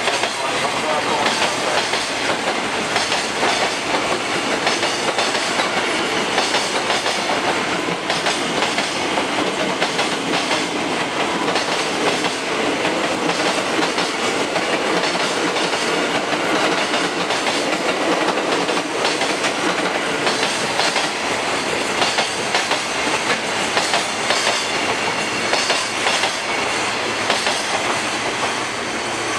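Freight train's container flat wagons rolling past, a steady wheel-on-rail rumble with repeated clacks as the wheels cross rail joints. The sound eases slightly near the end as the tail of the train goes by.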